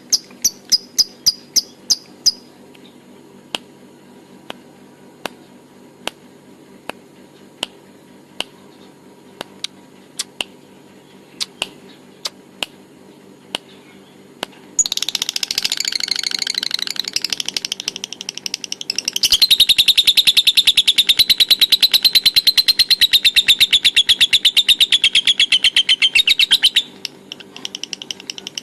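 Lovebird giving its long, fast chattering call (ngekek): a dense run of rapid high-pitched pulses that starts about halfway through, grows louder, and stops abruptly shortly before the end. It is preceded by scattered sharp clicks and a brief rapid ticking at the very start.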